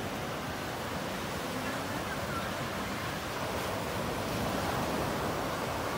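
Surf washing onto a sandy beach: a steady, even roar of breaking waves, with a low rumble of wind on the microphone.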